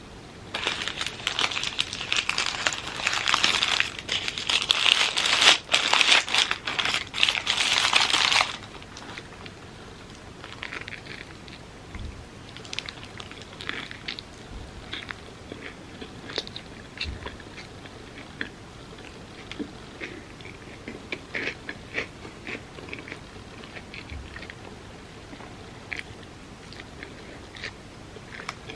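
Close-miked eating: about eight seconds of loud crinkling and crunching, then quieter chewing with scattered soft clicks and smacks.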